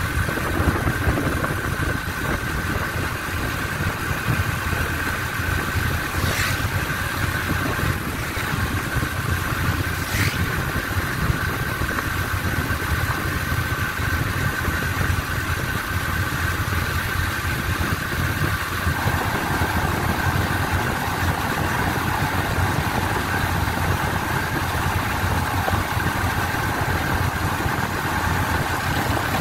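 Engine of a moving road vehicle running steadily, heard from on board, with a low road rumble and a steady high whine. A couple of faint clicks about six and ten seconds in.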